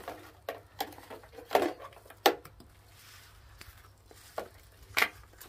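Plastic Easter eggs clacking against each other and against the plastic basket of a toddler's tricycle as a child handles them. A handful of sharp knocks, the loudest two about one and a half and two seconds in, another near the end.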